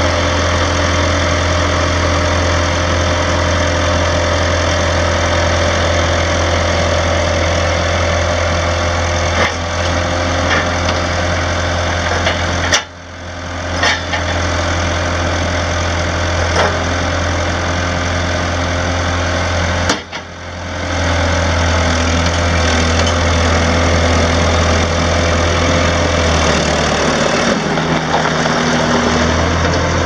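Kubota four-cylinder diesel engine of a 1987 Bobcat 943 skid steer running steadily as the machine drives and works its lift arms. The sound briefly drops out twice, and the low engine note shifts near the end.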